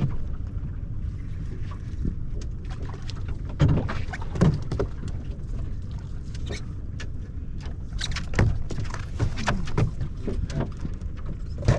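Steady wind and water noise on an open boat, broken by irregular knocks, clicks and clatters, the loudest a few seconds in and again past the middle.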